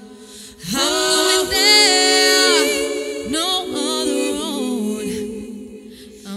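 A vocal group singing a song in several-part harmony, with long held notes and no drums.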